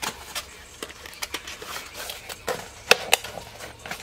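Small packaged parts being handled on a table: scattered light clicks and taps, with two sharper clicks close together about three seconds in.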